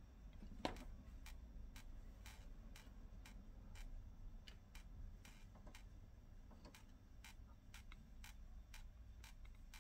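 Near silence with faint, even ticking, about three ticks a second, over a low steady hum.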